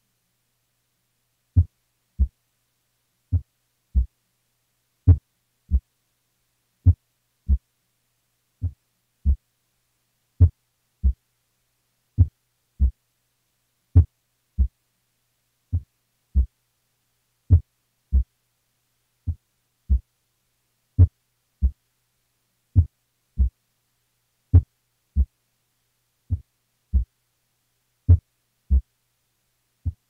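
Cardiac auscultation recording at the heart's apex: a slow heartbeat of paired S1–S2 thumps, about one beat every 1.75 seconds (roughly 35 a minute). The loudness of S1 varies from beat to beat, a sign of complete heart block.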